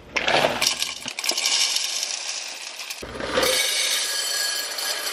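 Whole coffee beans poured from a bag, clattering into a glass jar in a dense rattle, with a brief pause about three seconds in before the pouring resumes.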